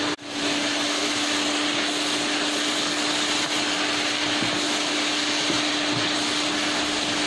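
Minced pork, carrot and jicama filling sizzling steadily as a wooden spatula stir-fries it in a wok over high heat, with a steady low hum underneath.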